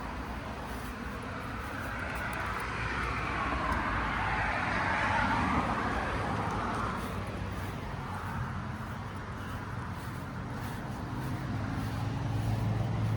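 A car passing by outdoors, its tyre and engine noise swelling to a peak about midway and then fading. A steady low hum comes in near the end.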